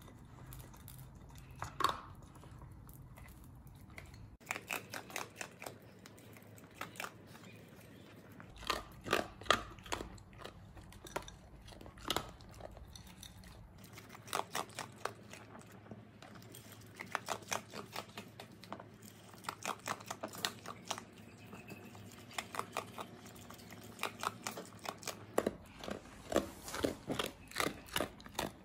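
Whippet eating kibble and dried strips from a bowl: crunching and chewing in irregular runs of short, sharp crunches.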